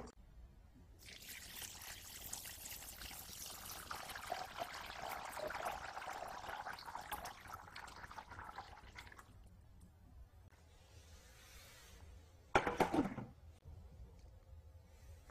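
Water poured from a container into a stainless steel pot of fresh green peas, a steady splash and trickle for about eight seconds. Near the end there is one short, louder clank as a glass lid is set on the metal pot.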